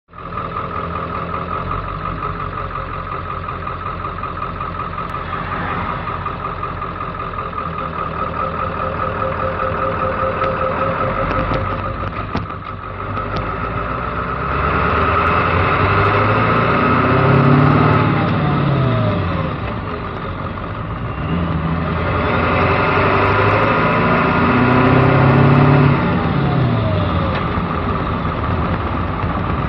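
Ford 7.3 Powerstroke turbo-diesel V8 with split-shot injectors, heard from inside the cab, pulling through the gears of a five-speed manual. The engine note climbs, drops away at each shift (about three times), then pulls again.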